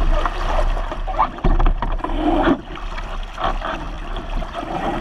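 Water rushing and splashing along the hull of a Sunfish sailboat sailing fast and heeled over, in uneven surges, with wind rumbling on the microphone.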